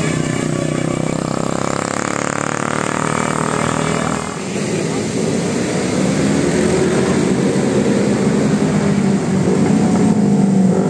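Road traffic: a vehicle goes by with a rushing noise in the first few seconds, then a large engine draws near and gets louder, with a low steady hum.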